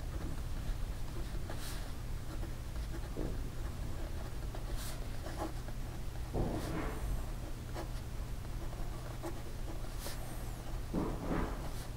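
Fine steel nib of a Caran d'Ache 849 fountain pen scratching across lined paper as it writes words, in short irregular strokes, over a steady low hum.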